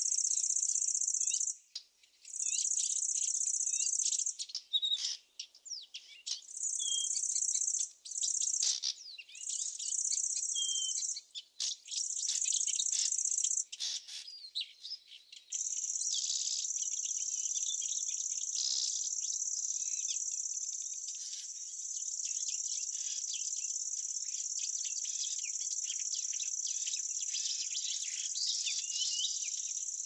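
High-pitched insect trilling. It comes in stop-start stretches of a couple of seconds for about the first half, then runs unbroken, with small birds chirping underneath.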